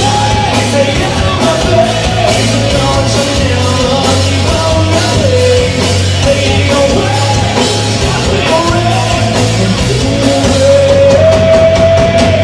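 Rock band playing live and loud: electric guitars, bass and drums under a singer holding long, bending notes.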